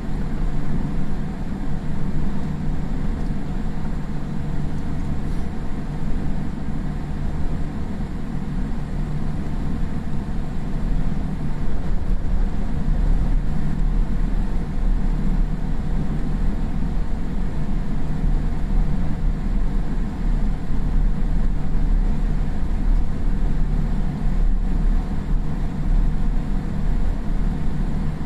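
Cabin noise of a Boeing 787-8 taxiing after landing: a steady low rumble with a faint constant hum.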